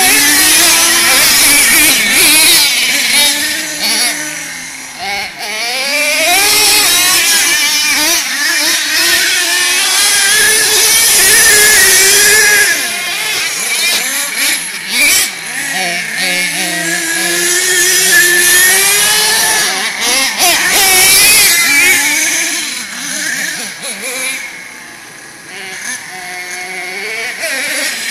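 Nitro RC monster truck's small two-stroke glow engine revving up and down over and over, its pitch rising and falling with the throttle, with brief drops near a quarter of the way in and again near the end.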